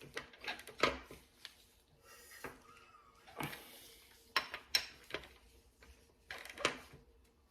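Metal tools and engine parts clinking and knocking together in a string of sharp, irregularly spaced strikes, during hand work on a Subaru FA20 engine's timing chain assembly.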